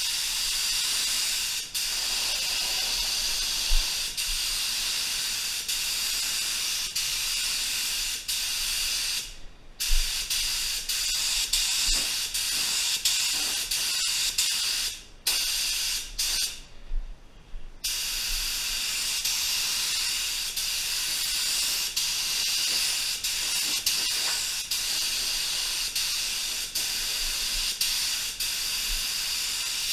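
Tuba TR300 HVLP gravity-feed spray gun hissing steadily as it sprays clear coat. The hiss stops briefly three times around the middle, where the trigger is let go between passes.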